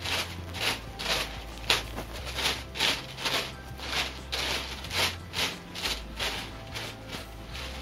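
Tissue paper pom-pom being fluffed and shaped by hand: repeated rustling and crinkling of the tissue layers, about two a second.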